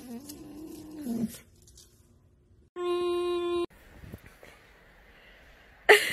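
A fox's long, wavering whine that rises and falls and dies away about a second in. Around three seconds in, a steady flat tone sounds for about a second, starting and stopping abruptly.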